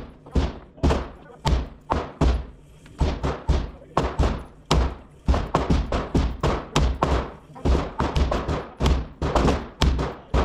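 Rapid, irregular gunshots in an indoor shooting range, roughly two a second with some in quick pairs, each trailing off in the room's echo.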